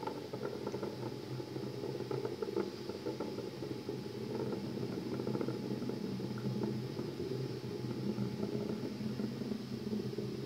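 Falcon 9 rocket's first-stage engines during ascent, a steady low rumble with faint crackle.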